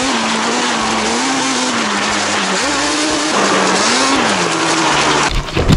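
Small Suzuki quad bike engine running under a loud rushing noise, its pitch rising and falling twice with the throttle. Heavy low thumps come near the end.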